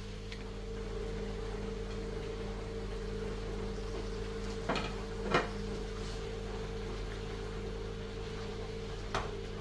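Chicken and onions frying in a pan, stirred with a wooden spoon, over a steady hum. A few short knocks of the spoon against the pan and plate as sliced mushrooms are tipped in, the loudest about halfway through and another near the end.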